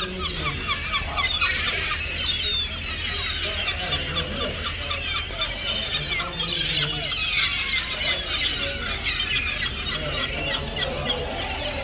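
A flock of gulls calling: many short cries overlapping continuously, over a low steady rumble.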